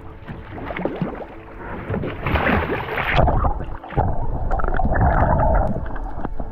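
Water splashing as a freediver in long fins drops off the side of a boat into the sea, loudest about two to three seconds in. After that comes muffled rushing and bubbling, heard underwater.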